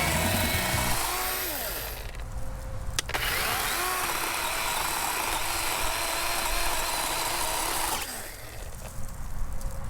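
DeWalt 20V cordless chainsaw running and cutting through a tree branch in two bursts, with a short break and a sharp click between them, then going quieter near the end.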